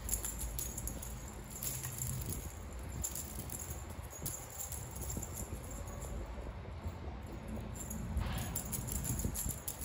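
The thin metal chain of a dangling cat teaser toy jingling and rattling in a string of small clicks as it swings, over a low rumble.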